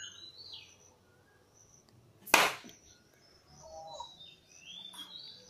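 One loud, sharp smack a little over two seconds in, with a few faint high bird chirps around it.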